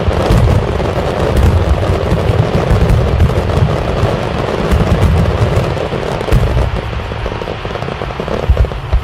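A dense barrage of aerial firework shells bursting, rapid overlapping booms mixed with crackling. It eases a little after about six seconds, with one sharp bang near the end.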